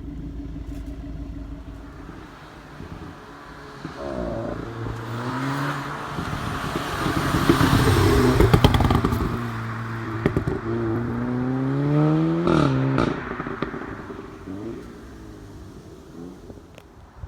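Audi S3 8V facelift's 2.0-litre four-cylinder turbo engine accelerating hard in a drive-by, its note climbing as it comes up and passes, with a few sharp cracks near the loudest point. About 13 seconds in the revs rise and drop at a gear change, then the sound fades as the car pulls away.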